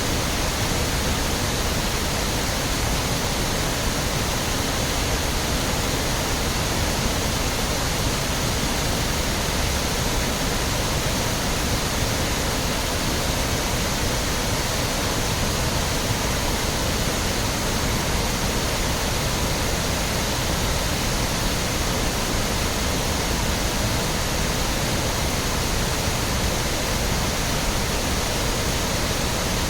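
Waterfall: falling water rushing with a steady, dense roar.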